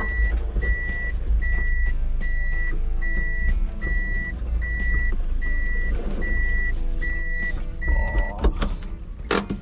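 Kei truck reversing, its back-up beeper giving a high single-tone beep about once every 0.8 seconds over the low run of the engine. The beeping stops about 8 seconds in, and a sharp knock follows near the end.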